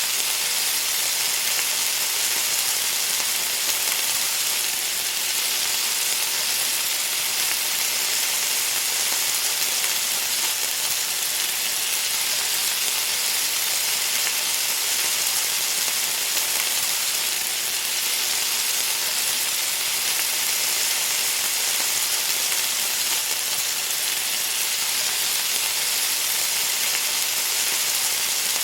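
Hot food sizzling: a steady, unbroken hiss, mostly high-pitched.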